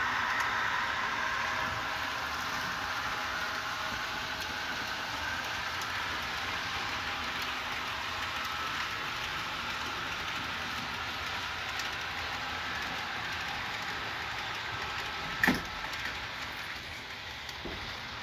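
HO scale model train running on the layout track: a steady hiss of wheels on rail with a faint whine, easing slightly over the first few seconds. One sharp knock about fifteen seconds in is the loudest moment.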